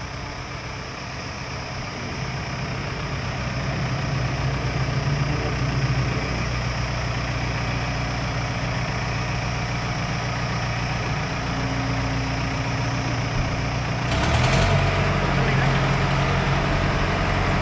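Diesel engine of a self-loading concrete mixer running steadily, driving its freshly repaired hydraulic pump. The engine picks up a little over the first few seconds. About fourteen seconds in, the sound grows louder with a hiss added.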